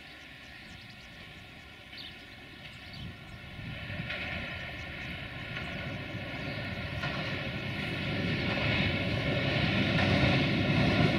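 Diesel engine of a DB Class 232 'Ludmilla' locomotive hauling a freight train, a steady deep drone with a rushing hiss that grows louder as the train approaches.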